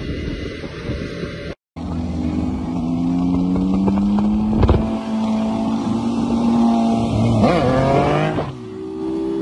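Wind buffeting the microphone on a moving motorcycle, cut off after about a second and a half. Then a Triumph Tiger 800's three-cylinder engine runs with its pitch climbing slowly as it pulls, revs up sharply near the end and drops back.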